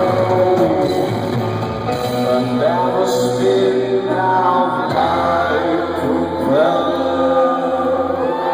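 Live rock band playing, with a male lead vocal over guitars and a steady bass line.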